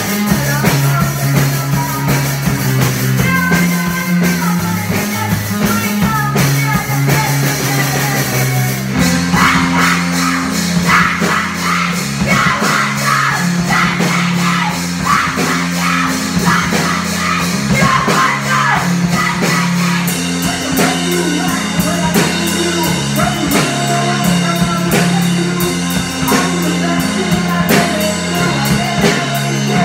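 A live rock band playing, with a drum kit and an electric keyboard holding low notes under a woman's singing. About nine seconds in, the drumming gets busier with steady cymbal hits.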